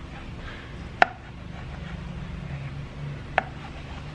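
Chef's knife cutting down through a thin egg omelette and knocking on the cutting board twice, the knocks about two and a half seconds apart, over a steady low hum.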